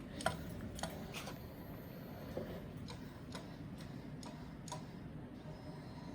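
Faint, sharp clicks at irregular intervals, roughly one every half second, from a small joystick-driven robot whose motors start and stop in short pulses instead of running steadily. A delay in the control code is suspected as the cause.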